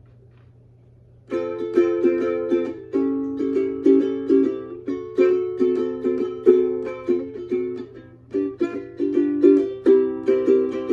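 Magic Fluke Flea ukulele strummed, playing a sequence of chords in a steady rhythm, starting about a second in.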